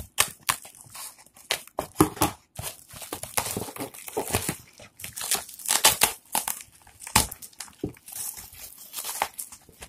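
Plastic wrapping and packing tape crinkling and tearing as a parcel is pulled open by hand, in quick irregular crackles and rips.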